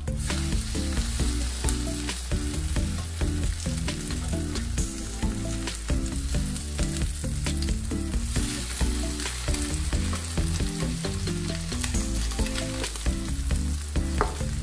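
Egg-and-vegetable patties sizzling and spitting in hot oil in a nonstick frying pan. A plastic spatula scrapes and taps as they are lifted and turned, and the sizzle flares up about halfway through.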